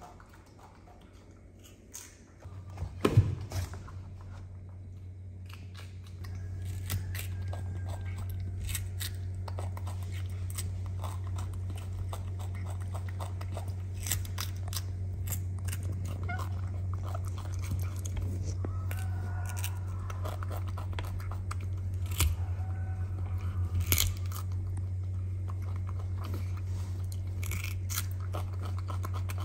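A young monkey biting and chewing a raw cucumber, with many short crunching bites. There are a few sharp knocks about three seconds in, and a steady low hum from then on.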